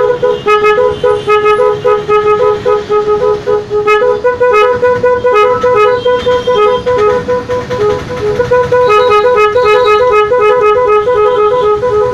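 MOCC snail horn driven by an 18-sound horn tuner, playing a loud, fast two-note tune. The horn flips between two close pitches several times a second, holding one note steady for about a second near the middle.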